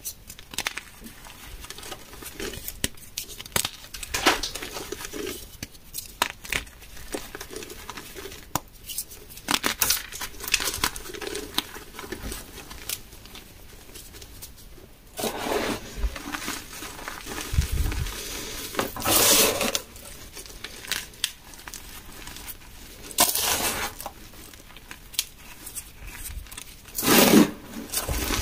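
Moulded gym chalk crushed and crumbled by hand: irregular crisp snaps and crunches as pieces break, with softer gritty rustling of powder squeezed and rubbed between the fingers. Louder bursts of crunching come several times in the second half.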